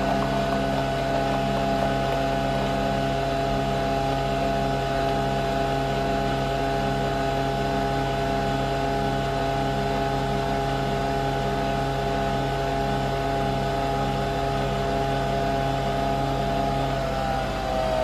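Nespresso Vertuo Next coffee machine brewing: a steady mechanical hum from the motor spinning the capsule and the pump, as coffee dispenses into the cup. Its pitch begins to fall near the end.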